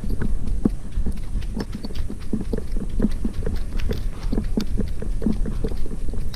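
Border Collie running over dry leaf litter on a forest path: quick, uneven thuds of its paws, about two or three a second, picked up close by a camera it carries, over a steady low rumble.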